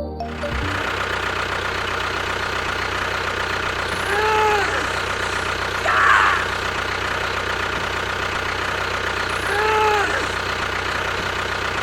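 An engine running steadily at idle with a low knocking rhythm. Two short rising-then-falling tones sound over it about four seconds in and again near the end, with a brief noisy burst in between.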